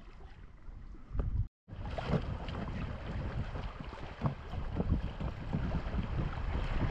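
Water splashing and rushing against an inflatable packraft as it moves through choppy, faster-flowing water, with wind buffeting the microphone. The sound cuts out briefly about one and a half seconds in and is louder afterwards.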